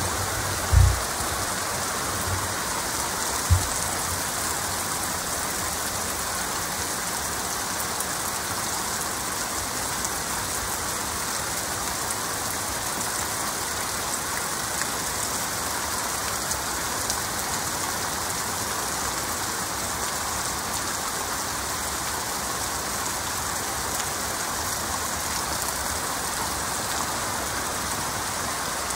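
Heavy rain falling steadily, an even hiss of drops with no letup. Two short low thumps come in the first few seconds.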